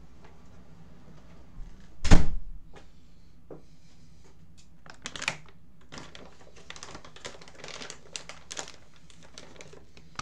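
A single loud thump about two seconds in, then scattered clicks, taps and rustling as someone moves about and handles things right beside the microphone.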